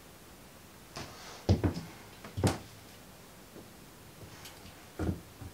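Several scattered soft knocks and thumps from someone moving about and handling things in a small room, with quiet room tone between them. The loudest come about a second and a half in.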